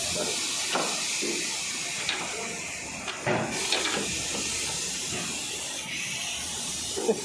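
Steady hiss with a few short knocks scattered through it.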